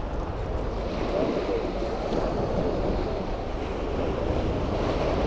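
Small waves breaking and washing up a sandy beach, with wind blowing across the microphone, steady throughout.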